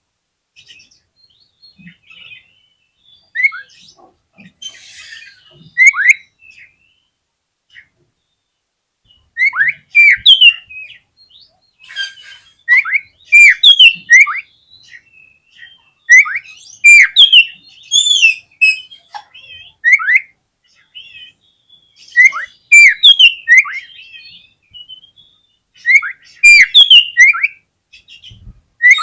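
Oriental magpie-robin (kacer) singing: loud bursts of sharp, down-slurred whistled notes and high chirps in quick phrases separated by short pauses, with a longer silent gap about a quarter of the way in.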